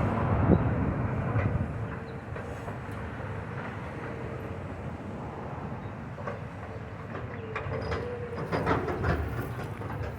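Heavy demolition machinery running with a low, steady rumble, with scattered clanks and crunches of debris that come more often near the end.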